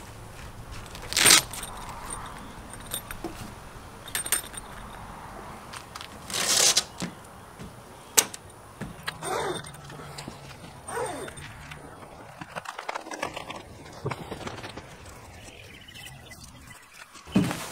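The zippered rear fabric panel of an inflatable truck camper shell being handled: scattered sharp clicks and jingles, a short rasp about six seconds in, and fabric rustling as the panel is worked open and rolled up.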